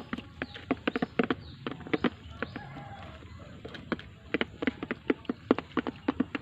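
Chickens pecking at feed: rapid, irregular sharp taps, several a second, thinning out briefly about three seconds in.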